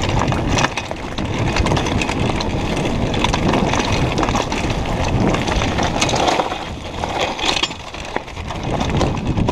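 Downhill mountain bike rolling fast over a rough gravel and dirt trail: tyres crunching on loose stones, the frame and parts rattling over the bumps, and wind rushing on the microphone.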